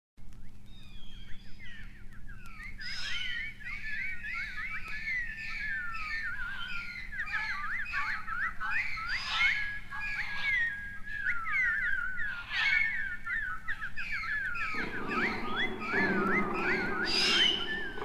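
Birdsong: many chirping and whistled bird calls overlapping one another. About fifteen seconds in, a lower, fuller sound swells in beneath them.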